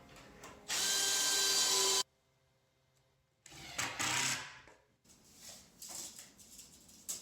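A handheld power tool runs steadily for over a second and cuts off abruptly. A few seconds later a second burst of similar noise rises and fades away.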